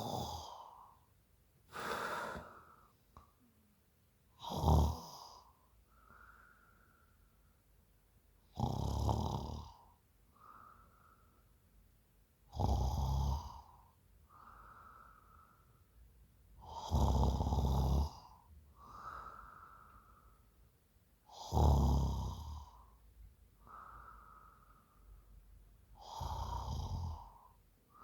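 A woman asleep after a few drinks, snoring. Seven loud snores come about every four seconds, each lasting about a second, with a softer, quieter breath between them.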